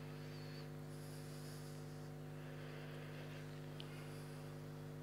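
Steady electrical mains hum, several even tones held without change, with a faint click about four seconds in.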